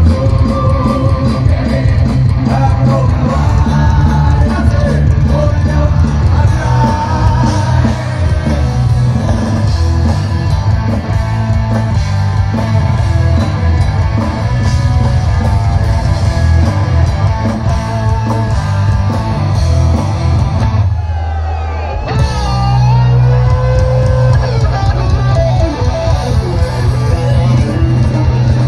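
Rock music with electric guitar, drums and singing, at a steady beat; the bass and drums drop out for about a second near the three-quarter mark, then come back in.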